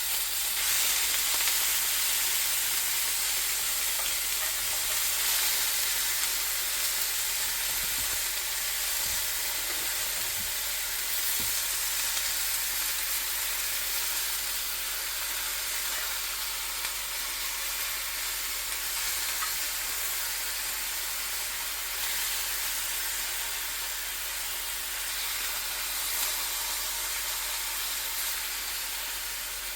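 Bacon sizzling in a frying pan: a steady frying hiss that grows gradually a little quieter.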